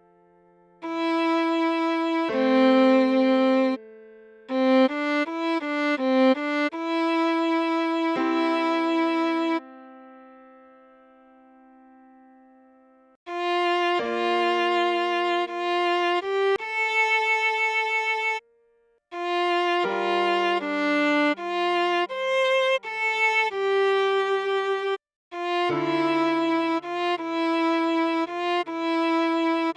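Viola playing a slow melody in phrases of held notes with short pauses between them, with a lower line of long notes beneath some phrases.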